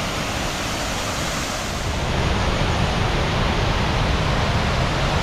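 Waterfalls cascading into a river: a steady rush of falling water that grows fuller and deeper about two seconds in.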